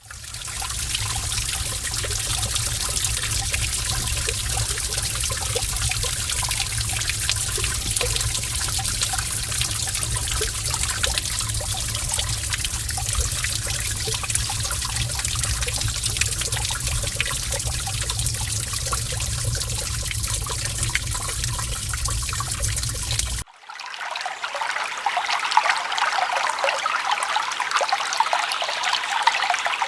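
Forest stream flowing steadily, a dense rushing water sound with a low rumble underneath. About 23 seconds in it cuts off abruptly and gives way to a lighter, higher trickling of water with no low rumble.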